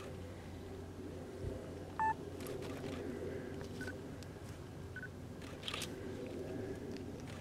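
Short electronic beeps from a camera: one louder beep about two seconds in, then two fainter short beeps, with a few brief shutter clicks, over a steady low hum.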